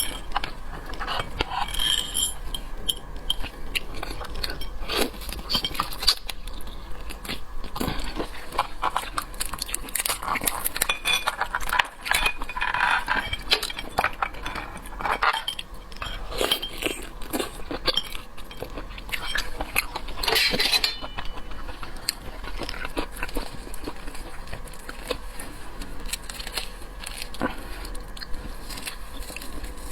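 Close-miked eating of seafood: a dense run of clicks and clinks from utensils and shells against dishes, mixed with biting and chewing.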